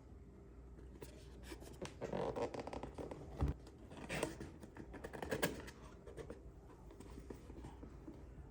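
Hands handling and opening a fishing reel's retail packaging: scratchy rustling and scraping with small clicks, and one knock about three and a half seconds in.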